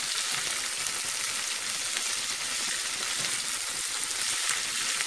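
Sliced onions sizzling steadily as they sauté in hot coconut oil in a nonstick pan, stirred now and then with a plastic slotted spatula.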